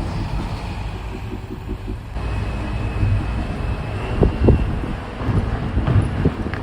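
Road traffic noise from a moving vehicle: a steady low rumble, with a few brief low thumps about four seconds in and near the end.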